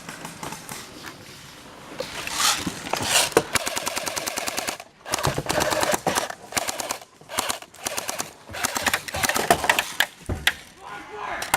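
Airsoft guns firing in rapid full-auto bursts, several strings of fast, evenly spaced shots with a short break about halfway through.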